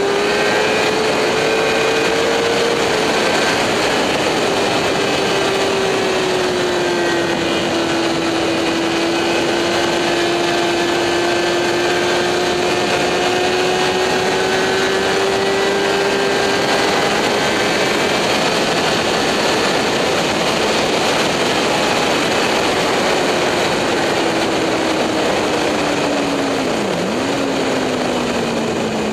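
Onboard sound of a motorcycle engine running at a fairly steady, moderate pace, under heavy wind rush. Near the end the engine note falls away as the bike slows.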